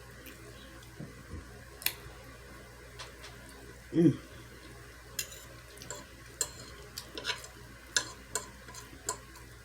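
Eating sounds close to the microphone: scattered wet clicks and smacks of chewing. There is one short, louder low voiced sound, like an "mm", about four seconds in.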